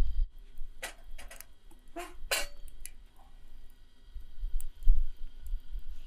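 Campfire crackling: a handful of sharp pops and snaps in the first few seconds, over a faint steady high tone.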